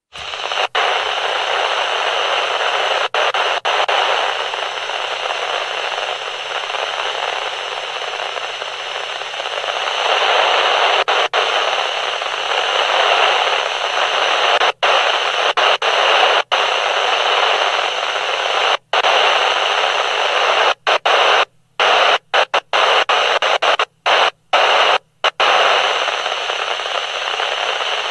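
Walkie-talkie speaker hissing with steady radio static, cutting out briefly now and then, with a run of short breaks in the hiss near the end.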